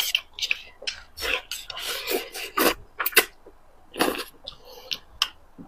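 Close-miked eating sounds: a rapid, irregular series of wet mouth smacks, slurps and chewing clicks as food taken with chopsticks is eaten.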